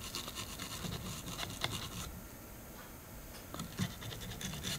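Toothbrush bristles scrubbing on a circuit board: a run of small scratches and clicks, busiest in the first two seconds, with a few more near the end.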